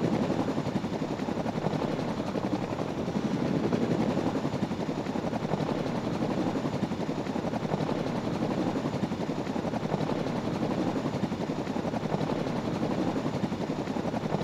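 Chinook tandem-rotor helicopter running, a steady rapid beat of rotor-blade pulses.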